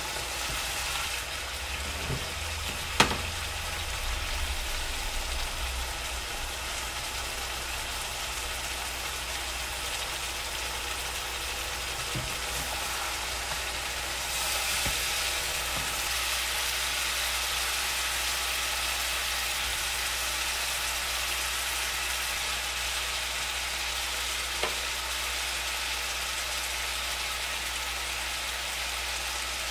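Chicken pieces sizzling in hot oil and ghee in a frying pan while being stirred with a spatula. There is a sharp knock of the spatula against the pan about three seconds in, and the sizzle gets louder about halfway through.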